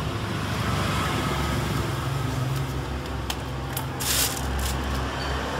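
Sharp air cooler's fan running with a steady hum and rush of air, a plastic bag stirring in its airflow. Between about three and five seconds in, the bag crinkles louder as a hand grabs it.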